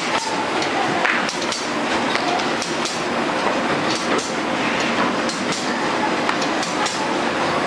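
Automatic shrink-film cutting-and-sealing machine and its heat-shrink tunnel running together: a steady mechanical din with frequent, irregular sharp clacks.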